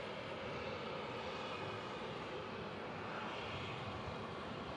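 Embraer E175 regional jet's turbofan engines heard at a distance as a steady rush of noise while the jet rolls down the runway, swelling slightly about three seconds in.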